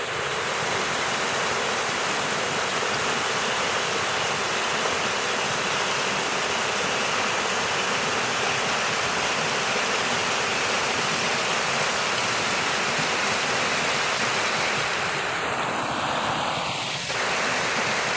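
Small waterfall running: a steady rush of water splashing over rocks, briefly dipping near the end.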